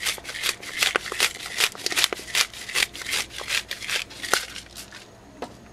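Pepper being dispensed by hand over a whole raw snapper: a rapid, irregular run of short crackly clicks that stops about four and a half seconds in.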